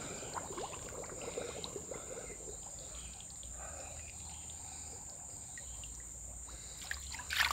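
Faint waterside ambience: a steady high insect drone, with light trickling water and scattered small ticks.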